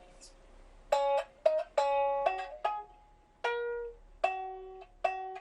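A sanshin, the Okinawan three-stringed lute, plucked in an instrumental introduction. It plays a run of single notes that each ring and fade, starting about a second in.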